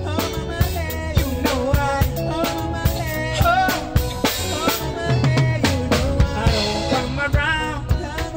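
Live band playing an upbeat song, a drum kit keeping a steady beat, with a male lead vocalist singing into a microphone.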